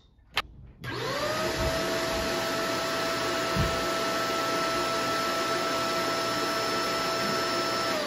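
Shark upright vacuum cleaner switched on after a click: its motor spins up within a fraction of a second to a steady high whine over a rushing air noise and runs at constant speed.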